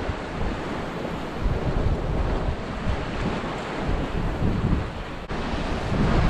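Wind buffeting the microphone in gusts over the steady wash of waves breaking on a rock ledge.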